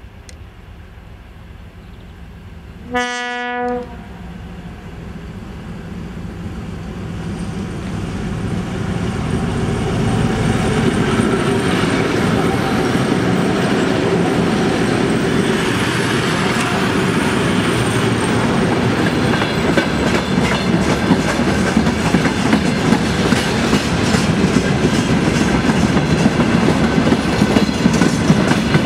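A train of four ST44 (M62) diesel locomotives sounds one short horn blast about three seconds in, then draws near and passes with the heavy rumble of their two-stroke diesel engines. Near the end, the rhythmic clickety-clack of freight wagon wheels over rail joints takes over.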